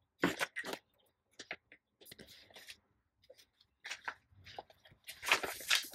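Paper pattern piece and fabric being handled on a cutting mat: scattered rustles and light taps, with a longer, louder rustle about five seconds in.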